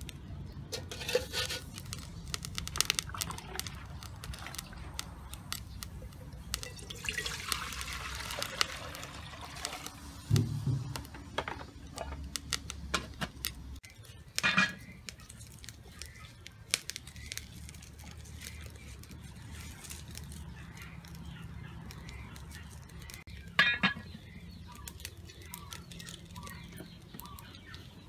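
Food-preparation sounds: water poured and splashing in a plastic bowl, a cleaver knocking on a wooden chopping board, and scattered small clicks and taps. A hissing stretch of pouring comes about a quarter of the way in, and a few sharp knocks stand out.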